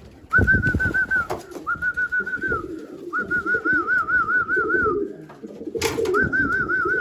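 A person whistling four warbling, trilled whistles, each held at one pitch with a quick wobble, to call young racing pigeons in through the loft trap. Pigeons coo underneath, and there is a single sharp knock just before the last whistle.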